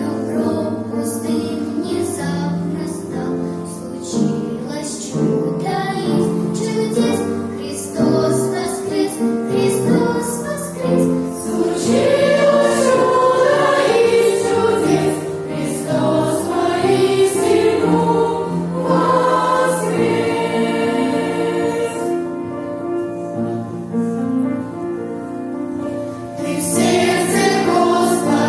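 Children's choir singing an Easter song.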